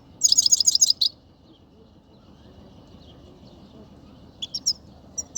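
Himalayan goldfinch singing: a loud burst of rapid, twittering high notes about a quarter second in, lasting under a second, then a pause and a few short chirps near the end.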